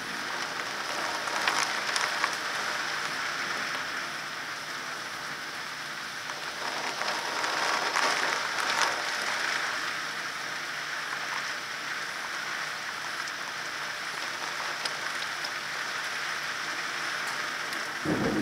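Heavy rain pouring down through the leaves of trees in a storm, a dense steady hiss that surges louder about two seconds in and again around eight to nine seconds in.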